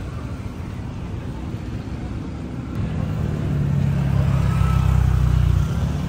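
A motor vehicle's engine passing close by on a street: a low rumble over steady traffic noise builds from about halfway through, peaks, and drops away shortly before the end.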